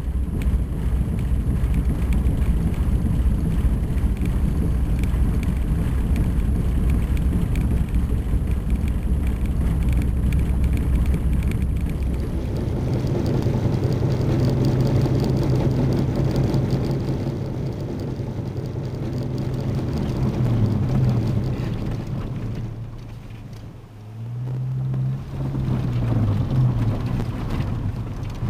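Car engine and tyre noise from inside the cabin while driving on a slushy road: a deep rumble that changes abruptly about twelve seconds in to a steadier engine hum. The hum's pitch dips and rises a few times near the end as the engine speed changes.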